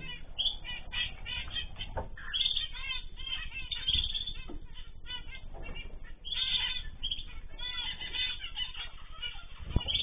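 Mixed aviary birds (zebra finches, canaries and cockatiels) calling over one another in a dense run of short, repeated chirps, with a few brief wing flutters as birds fly between perches.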